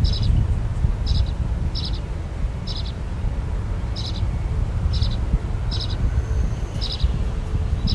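A bird repeating a short, high call about once a second, over a steady low rumble.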